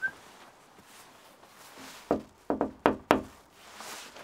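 Knocking on a glass-panelled front door: about five sharp knocks in a quick irregular rhythm, starting about two seconds in.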